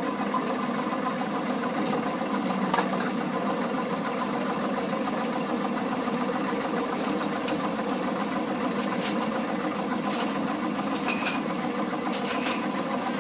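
Sesame dehulling machine running steadily, a continuous mechanical hum with a few light ticks, as hulled sesame seeds stream out of its chute.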